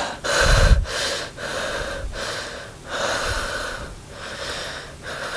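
A young man breathing heavily in a run of quick, ragged breaths, panting in distress. The first and loudest breath comes about half a second in, with a low boom.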